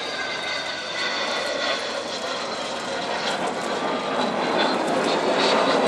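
Jet noise of the Avro Vulcan bomber's four Olympus turbojets on a fast flypast: a steady rush with a faint whine over it, growing louder toward the end.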